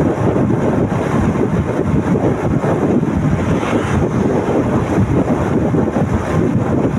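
Wind buffeting the microphone of a moving motorcycle: a steady, loud rush, with road and engine noise underneath.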